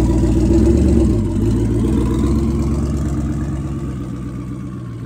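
Twin-turbo Ford Mustang's 5.0-litre V8 exhaust running as the car pulls off at low speed. The pitch shifts about a second in, and the sound fades steadily as the car moves away.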